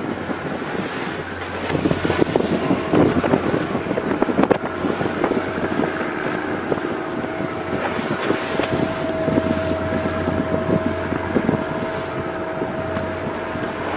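Wind buffeting the microphone over the steady low hum of a ship's engine at sea. A faint steady whine joins about five seconds in.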